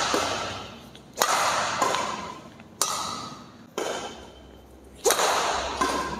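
Badminton rackets, one an Apacs Satelite 88 strung at 29 lbs, striking a shuttlecock back and forth in a rally. Five or six sharp cracks come about a second apart, each echoing briefly in the hall.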